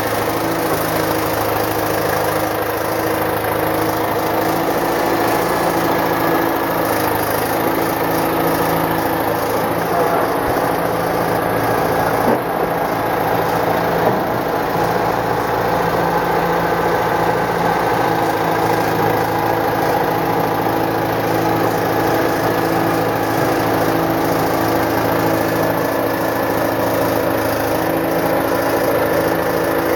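Caterpillar 955 track loader's diesel engine running steadily, with a couple of brief knocks about halfway through.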